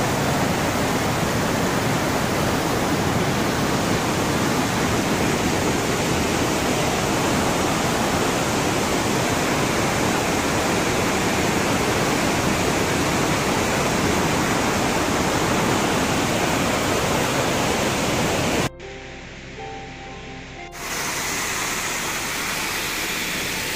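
Steady rush of fast-flowing water from a swollen rocky mountain stream. About three-quarters of the way through it cuts out for about two seconds, then the rush of a small waterfall comes back in.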